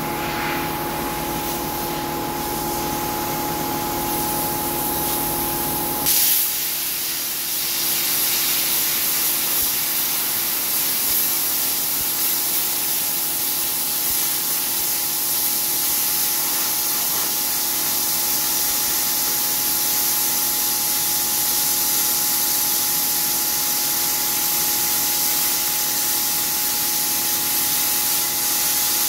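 Eastwood Versa Cut 60 plasma cutter cutting through a steel truck frame rail. A steady hum, then about six seconds in the arc strikes with a sharp pop and turns into a steady, loud hiss as the torch cuts.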